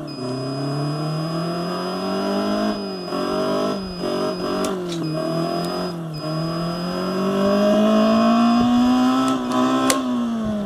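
Bluetooth exhaust speaker of an Emmo Gandan Turbo electric motorcycle playing a simulated petrol-engine sound that rises and falls in pitch with the twist of the throttle, several times over. The longest and highest rise comes near the end, then the pitch drops and the sound cuts off. A thin steady high tone runs behind it.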